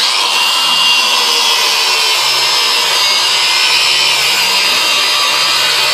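Battery-powered Ryobi angle grinder working a steel lawnmower blade. It cuts in abruptly and keeps up a loud, steady grinding noise.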